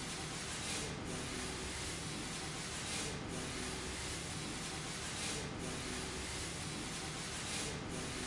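Handheld electric fogging machine running steadily, its blower and spray nozzle giving a continuous hiss over a low motor hum, with a brighter surge of hiss about every two seconds.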